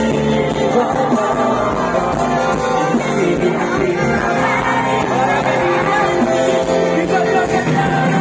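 Live pop band music with sustained chords and some singing over it, recorded from the audience.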